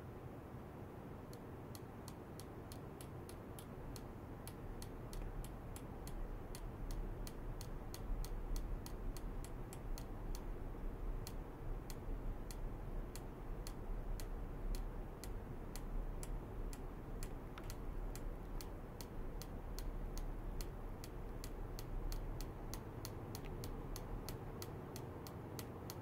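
Piezoelectric ultrasonic probe on a stainless rod, pulse-driven by a function generator, giving off sharp ticks a few times a second from about a second in. A low hum underneath gets louder about four seconds in.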